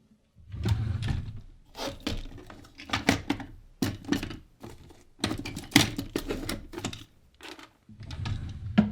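Someone rummaging through drawers: objects clattering and knocking against each other, with drawers sliding and scraping, in several uneven bursts separated by short pauses.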